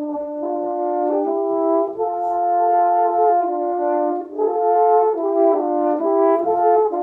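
Two French horns playing a duet in harmony, two lines of held notes that change step by step every half second to a second.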